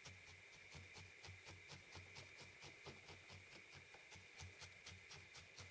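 Faint, rapid, evenly spaced pokes, several a second: a felting needle stabbing repeatedly through wool into the felting surface to tack a piece down.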